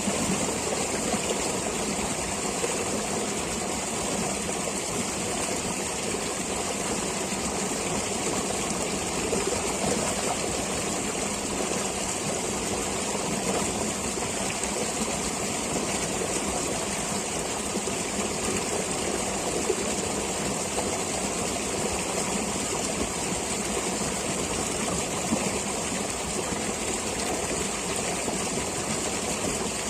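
Flowing stream water, a steady even rush with no breaks, with a constant high hiss above it.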